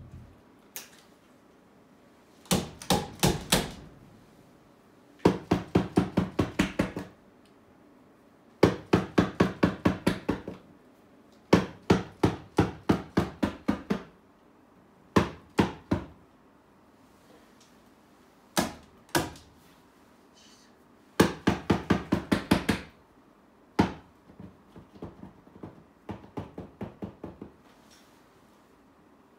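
Paint marker being shaken, its mixing ball rattling in repeated bursts of quick clacks, several a second, with short pauses between. The last bursts are quieter.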